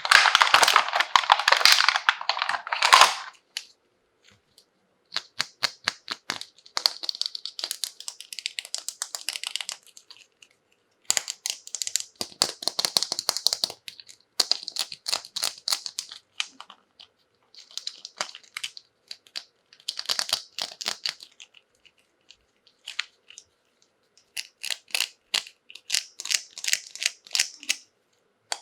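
Toy packaging crinkling and being torn open by hand, in bursts of crackling with short pauses between them. The loudest, fullest crinkling is in the first three seconds.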